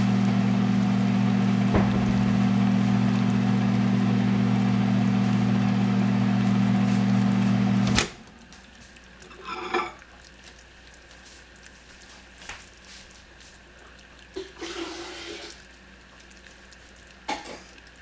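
Steady hum of a kitchen appliance motor, which stops with a click about eight seconds in. After that, caramelising sugar bubbles faintly in a stainless steel saucepan, with a few small clicks.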